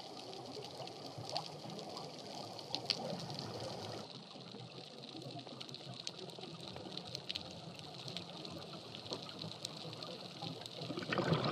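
Faint underwater ambience picked up by a dive camera: a steady wash of water noise sprinkled with tiny clicks and crackles, growing louder near the end.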